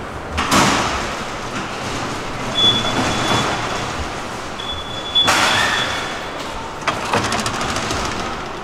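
Metro station ticket-barrier gates sliding open and shut with three sharp knocks, and a high steady electronic beep sounding twice, over a busy station's noise.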